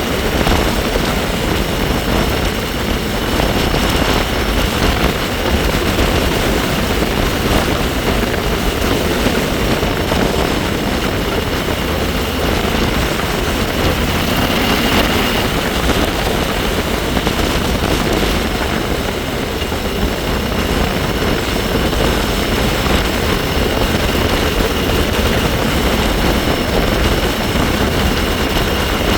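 Heavy wind rushing over the microphone while riding a bike, with a steady high-pitched whine from the bike running underneath it. The whine gives the futuristic, Jetsons-car-like sound.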